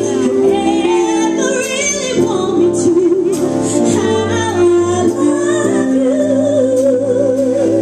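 A woman singing live into a microphone over a band of keyboards, bass and drums with cymbal hits. Her melody bends and runs through the middle and ends on a long held note with vibrato.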